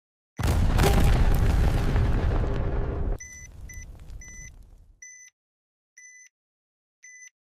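Explosion sound effect: a loud blast about half a second in, a long noisy boom that cuts off abruptly after about three seconds and leaves a fading rumble. Short electronic bomb-timer beeps then resume, a few quick ones and then about one a second.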